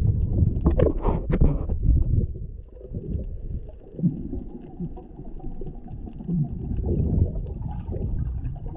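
Muffled low rumble of water against an action camera's waterproof housing underwater, with a few short bubbling gurgles.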